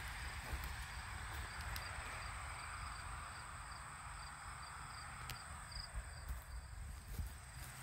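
Quiet summer outdoor ambience: insects chirping faintly over a low rumble on the phone's microphone.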